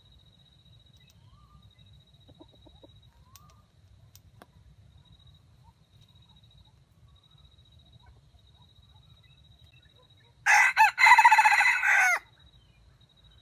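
Red junglefowl (wild jungle chicken) rooster crowing once near the end, a short crow of under two seconds broken by brief gaps at its start.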